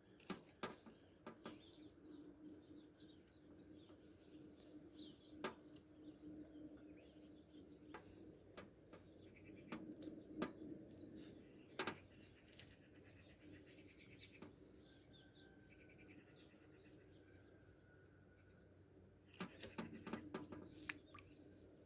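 Faint birdsong, short chirps over a low steady hum, with scattered sharp clicks and taps and a busier patch of clicking and rustling near the end.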